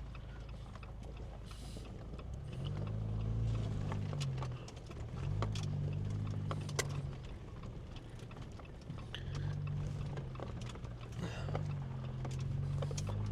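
Off-road vehicle's engine crawling over a rough dirt trail, its pitch rising and falling in about four surges as the throttle is pressed and eased. Scattered clicks and knocks run through it.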